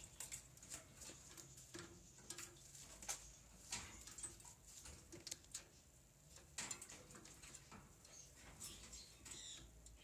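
A parakeet bathing in a stainless-steel water bowl: irregular light splashes, with taps and clicks against the metal bowl.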